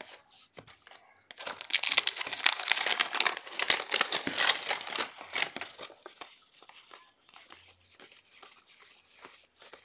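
The waxed-paper wrapper of a 1981 Topps football wax pack being torn open and crinkled, loud for about four seconds. It is followed by quieter flicking and rubbing of cardboard trading cards being sorted in the hands.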